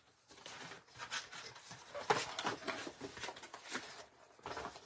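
Cardstock sheets and a cardboard kit box being handled: paper rustling and sliding, with a sharper tap about two seconds in.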